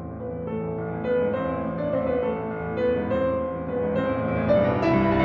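Background music led by piano, a slow melody of held notes.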